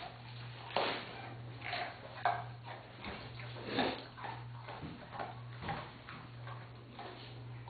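Doberman Pinscher crunching and chewing raw carrot pieces: irregular crisp crunches, roughly one a second, over a steady low hum.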